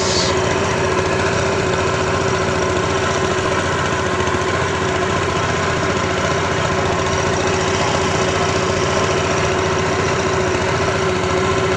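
A small engine running steadily at an even pitch, with no change in speed.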